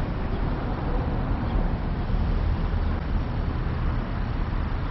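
Car running while stopped in a drive-thru lane: a steady low rumble with no changes.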